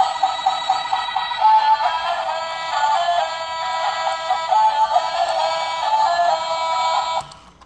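Battery-powered toy train's sound chip playing a simple electronic melody of stepping beeped notes, which cuts off near the end.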